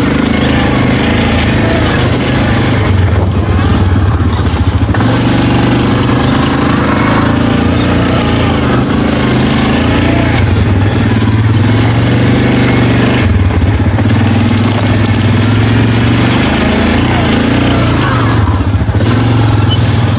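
Quad bike (ATV) engine running hard under load, heard close from a camera mounted on the machine, its revs rising and falling with the throttle, with several brief lifts off the gas.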